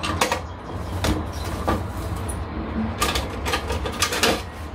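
Potting work with gloved hands and small gardening tools: a series of short clicks, scrapes and rustles, over a steady low hum.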